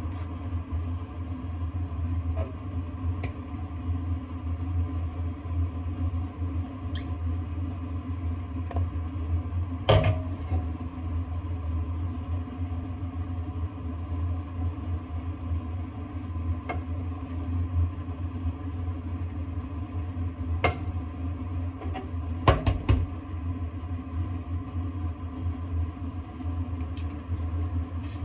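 Electric hob running with a saucepan on it, a steady low hum throughout. A few sharp knocks and clicks come from the pan being handled: the loudest about ten seconds in, and a quick cluster of several around twenty-three seconds.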